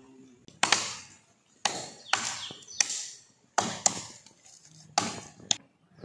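Sharp chopping blows into a dry, dead coconut palm trunk, roughly one a second, several of them followed quickly by a second strike, each fading briefly after the hit.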